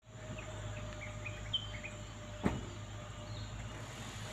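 Outdoor rural ambience: small birds chirping a run of short rising notes through the first two seconds over a steady insect drone and a low steady hum. A single sharp click about two and a half seconds in.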